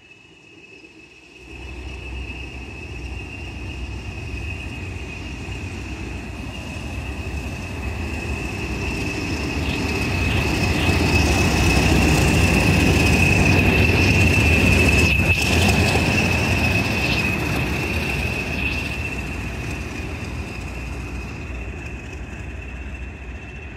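English Electric Class 20 diesel locomotive D8107 (8SVT engine) passing on its own. The engine noise builds as it approaches, is loudest as it goes by about halfway through, then fades as it runs away. A steady high whistle sits over it throughout.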